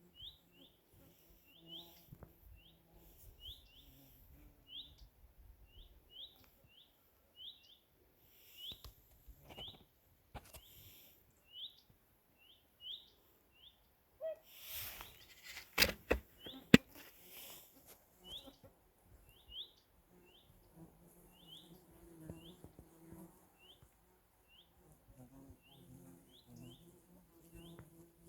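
A small bird calling over and over, short rising chirps repeated about once or twice a second. Near the middle come a few seconds of louder noisy rustling with sharp clicks.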